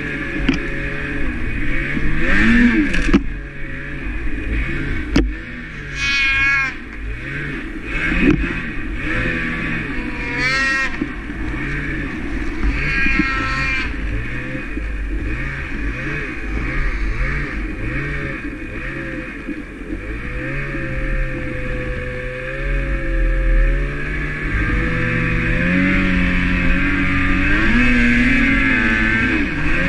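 Ski-Doo snowmobile engine running under way, its pitch climbing and dropping over and over as the throttle is worked, then running steadier and a little higher near the end. A few sharp knocks come in the first several seconds.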